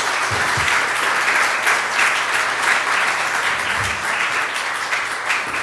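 Audience applauding steadily at the end of a lecture.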